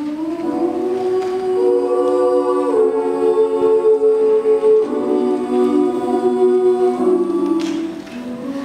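Youth choir of boys and girls singing held chords in several-part harmony, the chord shifting every couple of seconds. The sound dips briefly near the end as one phrase closes and the next begins.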